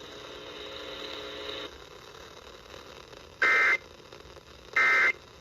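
Faint radio hiss and hum, then two short, harsh electronic data bursts about a second and a half apart. They are NOAA Weather Radio SAME end-of-message bursts, whose two alternating tones signal that the alert broadcast has ended.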